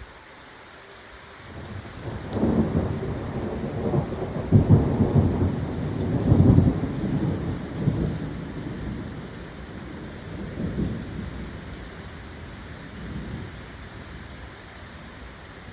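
Thunder rolling over steady rain: a low rumble builds about a second and a half in, swells several times, and dies away slowly in smaller rolls.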